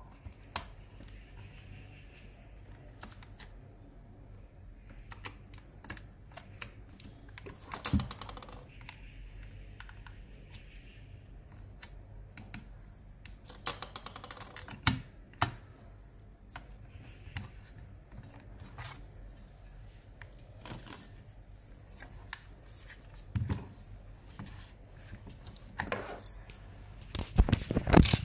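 Small clicks and taps of metal and plastic as hands work on a car radio display unit's steel backing plate and ribbon-cable connectors, with a few sharper knocks spread through and a louder clatter of handling near the end.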